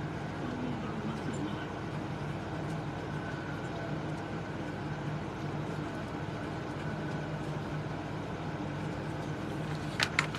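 Steady background hum and hiss of room noise, with a few sharp clicks near the end.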